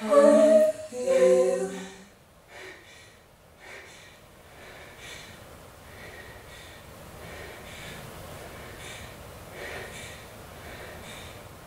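A woman's voice sings two short held notes unaccompanied, then gives way to quieter, rhythmic breathing, a breath roughly every half second to a second.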